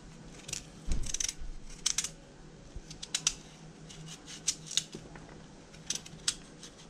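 Kitchen knife shaving the hard skin off a pumpkin: a run of short, irregular scraping cuts as the blade strips the peel.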